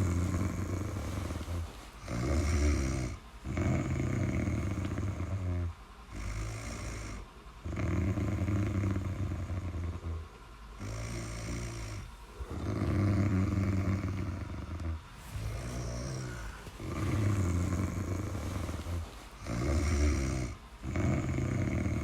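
Steady rhythmic snoring. Each breath cycle brings a shorter snore and then a longer one, with brief pauses between, and a full cycle comes about every three to four seconds.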